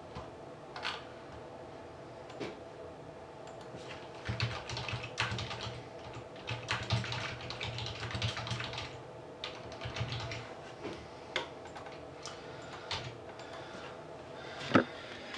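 Typing on a computer keyboard: runs of keystrokes through the middle, with scattered single clicks before and after and a sharper click near the end.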